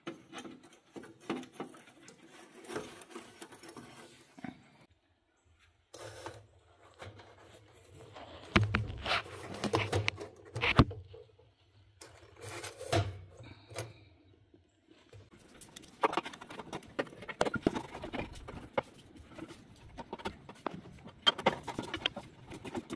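Scattered small clicks, knocks and rustles of hands handling a kiln thermocouple, its wires and ceramic insulator tube, with a low rumble under the louder knocks through the middle stretch.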